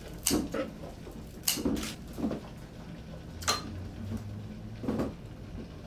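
Kitchen scissors snipping radishes off their leafy stems, with light knocks on a plastic cutting board: a few separate sharp snips and clicks a second or two apart.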